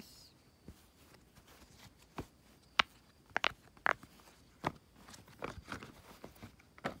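Silicone pop-it fidget toy's bubbles being pressed in by fingers, giving a string of irregular sharp pops, about ten of them, from about two seconds in.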